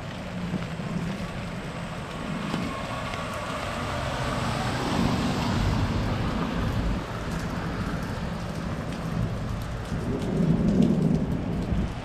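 Steady rain falling on pavement. A car's tyres hiss past on the wet brick street about four to seven seconds in. A low rumble of thunder swells near the end.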